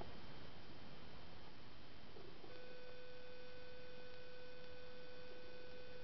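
A steady, even tone comes on abruptly about two and a half seconds in and holds, over a constant background hiss.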